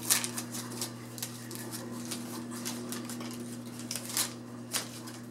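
Wax-paper wrapper of a 1988 Fleer baseball card pack crinkling and tearing as it is pulled open by hand: a run of short, sharp crackles, loudest just after the start and again twice near the end, over a steady low hum.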